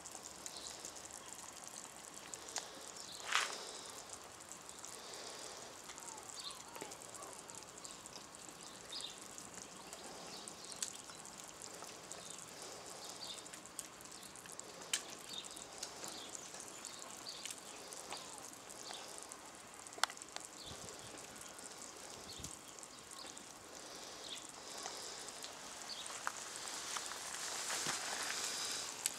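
A pot of stew simmering over an open wood fire: a soft, steady bubbling hiss with scattered pops and crackles, a sharper crack about three seconds in, and the bubbling growing louder near the end.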